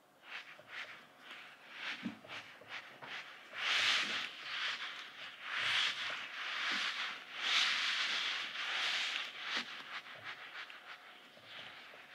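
Soft sand-filled duck squeeze toys from Daiso being squeezed and kneaded in both hands, giving a run of rustling, squishing surges that swell and fade with each squeeze. They are louder through the middle of the stretch and quieter near the start and end.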